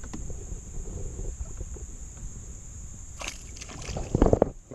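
Water sloshing around a kayak, with wind rumble on the microphone and a steady high insect drone. About three seconds in there is a splash, followed by a cluster of loud knocks and splashes, the loudest part.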